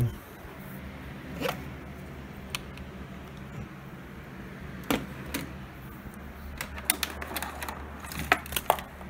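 Handling noise: scattered light clicks and knocks as things are picked up and the phone is moved about, with sharper knocks about five seconds in and near the end, over a steady low hum.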